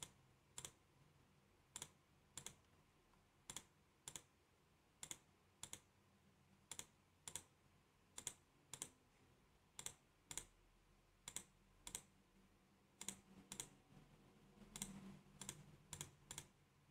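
Faint computer mouse clicks, mostly in pairs about half a second apart and repeating every second or so, with a quicker run of clicks near the end: layer visibility toggled on and off one after another.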